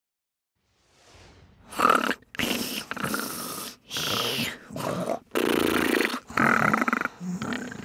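A series of rough, breathy snoring and snorting noises, about seven in a row, made by a voice as sleeping animals.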